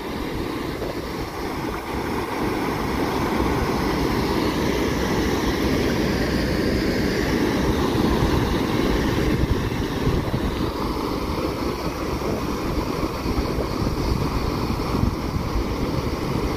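Wind buffeting the microphone: a steady, rumbling outdoor noise with no distinct events.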